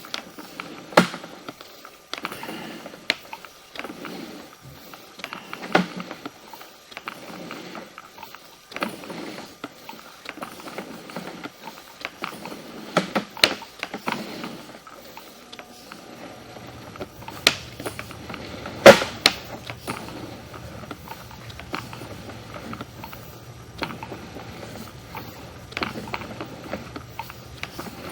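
Sewer inspection camera push cable and reel being worked through a drain line from a cleanout, giving irregular mechanical clicks and knocks, one sharper knock about two-thirds of the way in. About halfway through, a low steady hum starts up.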